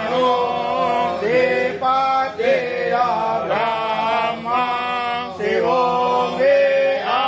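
A man's voice chanting a devotional Shiva mantra in slow melodic phrases, each note held about a second and gliding between pitches, over a steady low hum.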